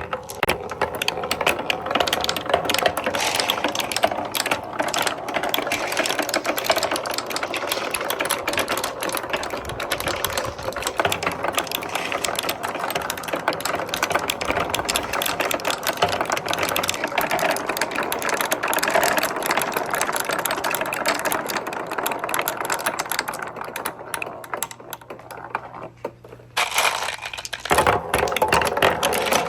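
Dozens of balls clattering down a marble run course of wooden track and metal parts, a dense, continuous rattle of clicks. It thins out near the end, stops for about a second, then starts up again.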